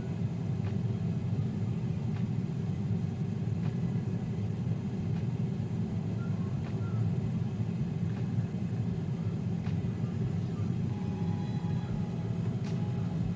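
Gourmia 6.7 L digital air fryer running steadily while it preheats: an even fan hum with a few faint ticks.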